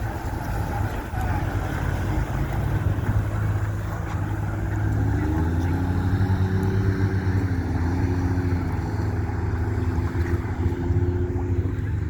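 Motorboat engine running with a low, steady drone. About five seconds in, a clearer engine hum comes in and holds, as a boat passes.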